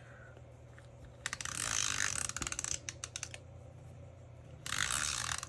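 Adhesive tape runner rolled across paper twice, with a ratcheting sound: a longer stroke about a second in that ends in a quick run of clicks, then a shorter stroke near the end.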